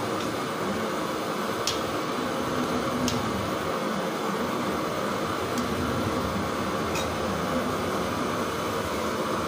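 A steel ladle stirring chicken gravy in a pan, clinking sharply against the pan about five times over a steady background hiss.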